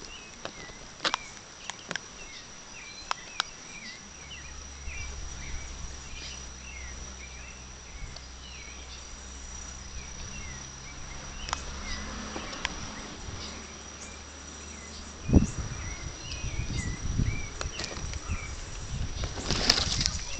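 Forest ambience with a steady high insect drone and small repeated chirps. A few sharp clicks come in the first few seconds, a low hum runs through the middle, and near the end there is a loud thump followed by rustling.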